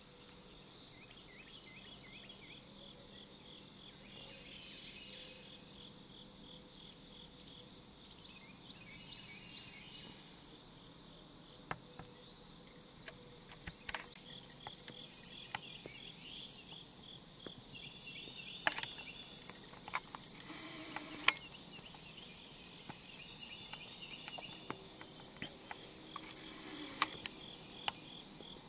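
Chorus of insects chirping: a steady high trill with rapid pulsed chirping under it, and a few sharp clicks scattered through.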